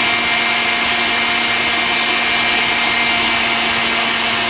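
Electric kitchen mixer running steadily with a constant motor whine, mixing flour and dry ingredients into cookie dough.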